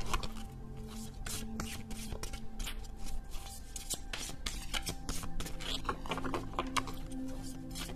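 A deck of tarot or oracle cards being shuffled by hand, with a rapid, irregular patter of card edges rustling and slapping together. Background music with steady held notes plays underneath.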